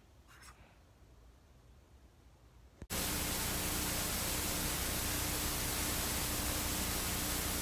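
Loud, steady TV static hiss that starts abruptly about three seconds in, after a few seconds of low room noise.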